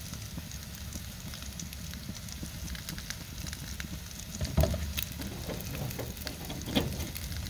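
Marinated pork barbecue sizzling and crackling on a grill, fat and sauce spitting in small pops over a steady hiss. A brief low thud comes about four and a half seconds in.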